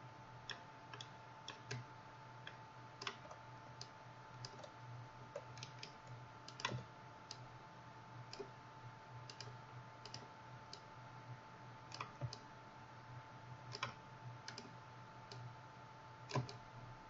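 Faint, irregular clicks of a computer mouse and keyboard, one or two a second, over a steady low electrical hum with a thin steady tone.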